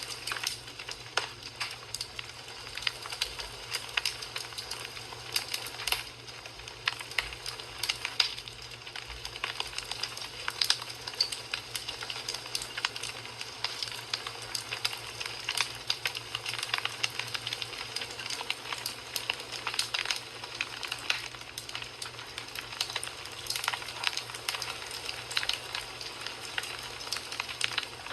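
Wood fire crackling in a fireplace: a steady hiss with frequent sharp pops and snaps.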